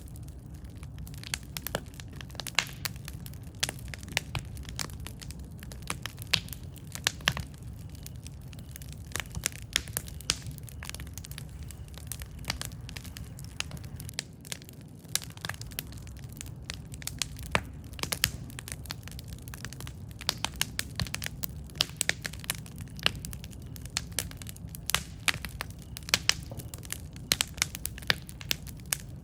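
Campfire burning with frequent irregular crackles and pops of wood over a steady low rumble of the flames.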